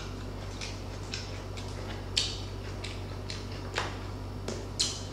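Close-miked chewing of crispy pata (deep-fried pork knuckle), the crispy skin crunching as an irregular series of short sharp crunches, with a few louder ones about two, four and five seconds in.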